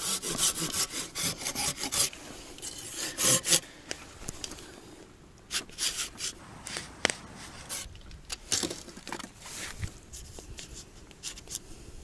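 A saw blade scraping and rasping along the bark of a birch log, scoring it to peel it off. The strokes come fast and close together for the first three and a half seconds, then slow to separate strokes.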